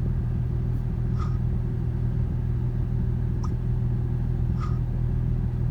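Steady low mechanical rumble running without change, with a few faint short ticks over it.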